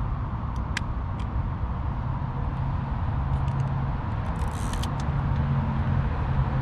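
Yashica Mat 124 camera handling: a few sharp clicks about a second in as the shutter fires, then more small clicks and a short scratchy burst a few seconds later as the film-advance crank is wound. Under it all runs a steady low traffic rumble.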